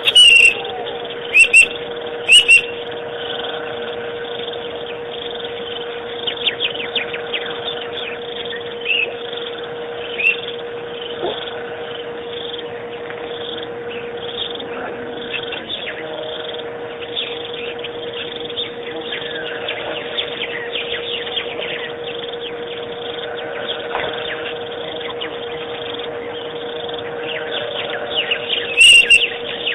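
Birds chirping, with many short chirps throughout over a steady hum; a few loud chirps come about a second or two in and again near the end.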